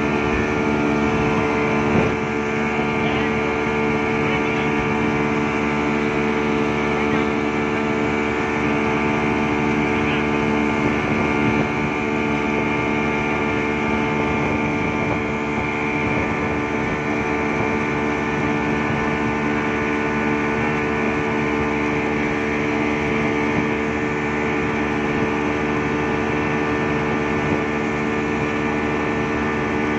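Yamaha 200 hp outboard motor running at a steady high speed, its pitch holding constant, with the rush of water from the wake behind it.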